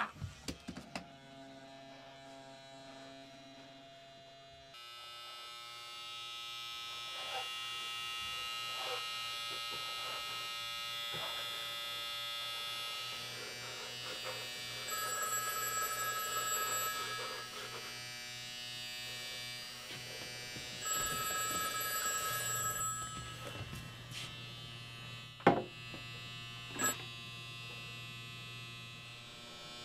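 Desk telephone ringing twice, each ring about two seconds long with about four seconds between them, over a steady low buzzing hum. Two sharp knocks follow near the end.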